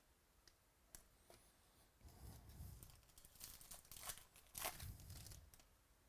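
Trading cards and their packaging being handled: faint rustling and crinkling, with a couple of light clicks in the first two seconds.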